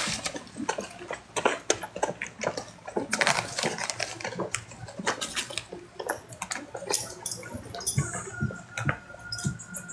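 Irregular soft clicks, rustles and small mouth noises from a wolfdog and her young puppies moving about together.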